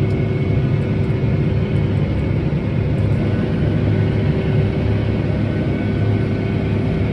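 Tractor engine running steadily under load while pulling harrows, a steady drone with a faint high whine over it.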